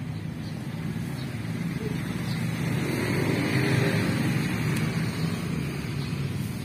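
A motor vehicle driving past, its engine sound growing louder to a peak about three to four seconds in, then fading.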